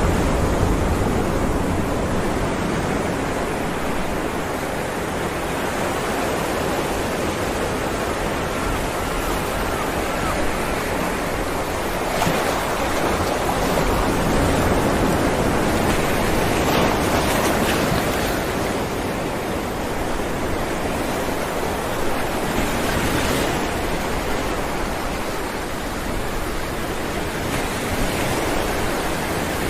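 Ocean waves breaking on rocks: a continuous rush of surf that swells and eases, with brief splashes about twelve seconds in, again around seventeen seconds, and near twenty-three seconds.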